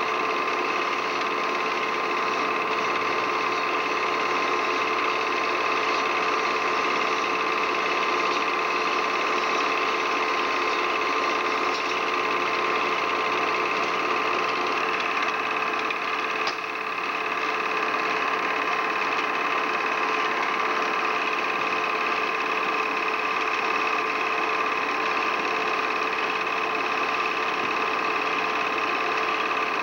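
Steady mechanical whir of a small machine running, with constant hums that hold unchanged throughout and a brief dip about halfway through.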